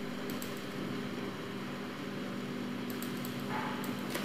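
Computer keyboard keys clicking in two short runs, about half a second in and again around three seconds in, over a steady low hum.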